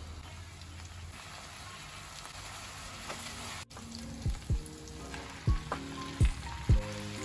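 Stir-fried vegetables sizzling steadily in a frying pan. From about halfway, soft background music with a light thumping beat and short plucked notes comes in over it, louder than the sizzle.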